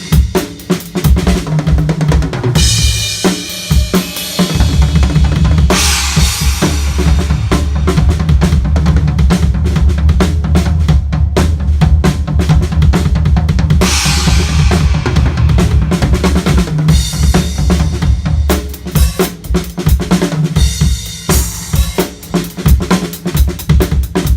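Natal Ash drum kit played in a sound check: a continuous run of strokes across snare, toms and a 22-inch bass drum, with cymbal crashes washing over it three times. A steady low rumble sits under the playing from about four seconds in until about eighteen seconds.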